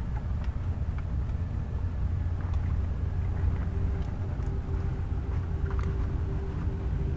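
Wind buffeting the microphone as a low, uneven rumble. A faint steady hum joins about two and a half seconds in, with a few light clicks.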